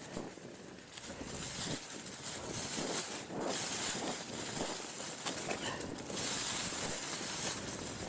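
Mountain bike (Mongoose Tyax) rolling fast over a dirt track strewn with dry leaves: tyre noise on the dirt with constant small rattles and knocks from the bike over the bumps. Wind rushes over the action-camera microphone, swelling twice.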